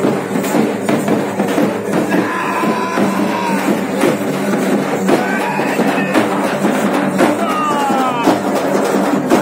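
Loud, fast procession drumming, dense and continuous, over a crowd. A few high sliding tones rise and fall above it from about two seconds in.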